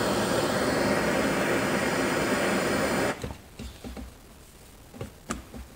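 Handheld propane torch burning with a steady hiss as it heats a steel engine connecting rod clamped in a vise, expanding the rod's eye to take a press-fit wrist pin. The torch is shut off about three seconds in, and a few light knocks follow.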